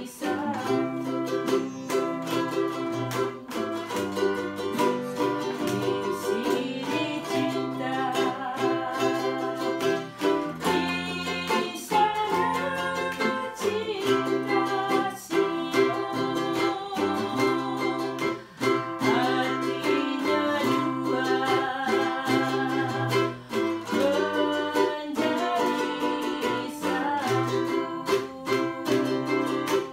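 Ukulele and acoustic guitar strummed together in a steady rhythm, accompanying a woman singing.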